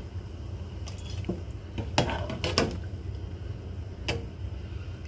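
Slotted metal skimmer clinking against the rim of a cooking pot and a steel bowl as boiled chicken pieces are lifted out: about six light knocks, the loudest about two seconds in, over a steady low rumble.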